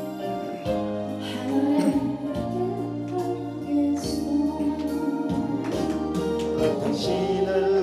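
A woman singing a Korean love song with live band accompaniment, over held chords and steady bass notes.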